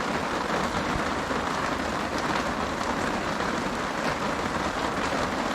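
Heavy rain pelting a tarp shelter, a steady dense patter that is loud enough to compete with speech.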